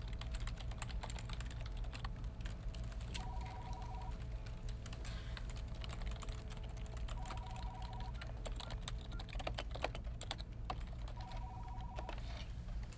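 Computer keyboard typing in quick runs of clicks, with an electronic desk telephone ringing three times, each a trilling two-tone ring about a second long, about four seconds apart: an incoming call.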